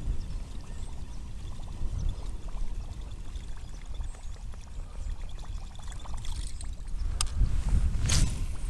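Water pouring and trickling around a kayak, over a low rumble, with a couple of sharp knocks near the end.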